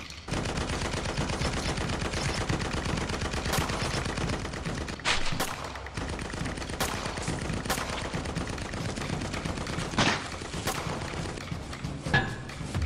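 Sustained rapid automatic gunfire, with louder single shots standing out every second or two.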